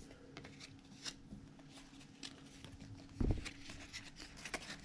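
Trading cards from a 2021 Contenders pack being flipped through by hand: faint clicks and rustles of card stock sliding over card, with a dull thump about three seconds in.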